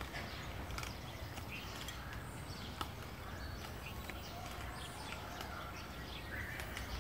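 Faint outdoor ambience with a few distant bird chirps, and scattered soft clicks and rustles from a beagle puppy chewing and tugging at a brown paper bag.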